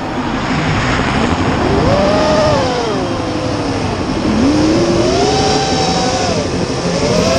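FPV racing quadcopter's brushless motors (ZMX Fusion 2206 2300kv on triblade props) whining, the pitch rising and falling several times as the throttle changes, dipping lowest about four seconds in.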